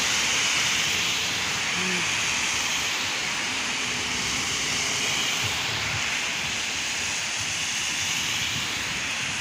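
Steady hiss of heavy rain mixed with rush-hour traffic, tyres swishing on a wet street.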